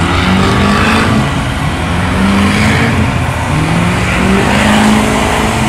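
Cars doing burnouts: engines revving hard, their pitch climbing and dropping again and again as the throttle is worked, over the loud hiss and squeal of tires spinning on the pavement.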